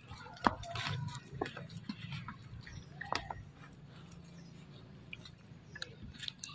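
Faint clicks and handling sounds from a macaque mother holding her newborn infant, with a brief rising squeak about three seconds in.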